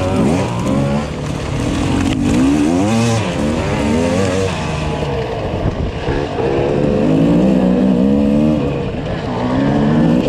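Dirt bike engine revving up and down again and again, its pitch rising and falling several times as the throttle is worked and eased off.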